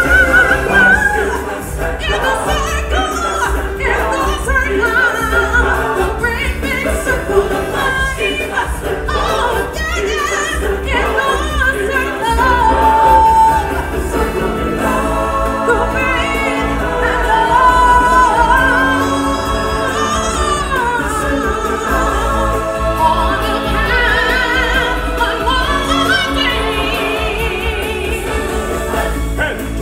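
Singers and a choir performing a stage-musical song over orchestral accompaniment, with several long held notes in the middle.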